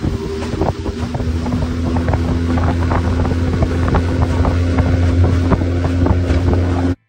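Outboard motor running at steady speed, driving a small aluminium skiff over the water, with wind buffeting the microphone and frequent short knocks from the hull on the small waves. It cuts off abruptly near the end.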